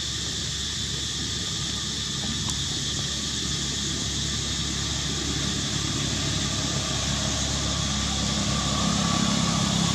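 Steady outdoor background noise with a constant high hiss, and a low engine hum that grows gradually louder near the end.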